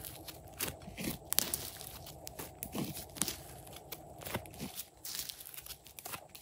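Slime being squeezed and worked by hand, giving irregular crackling clicks and soft squishes.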